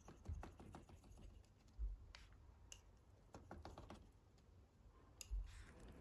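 Faint irregular clicking and scratching of a small kitchen knife cutting through puff pastry against a parchment-lined metal baking tray, with three dull low thuds.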